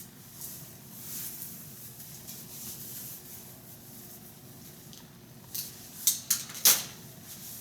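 Soft rustling and hiss, then a quick run of sharp clicks and knocks about six seconds in, the last one the loudest.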